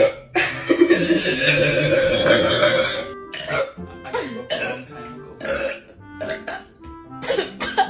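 A person burping from a stomach full of gas from carbonated Sprite: one long burp of nearly three seconds, then a run of short ones. Background music plays underneath.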